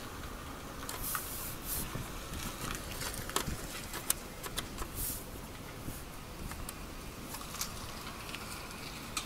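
Faint handling noise: scattered light clicks and a few short rustles over a steady low hiss.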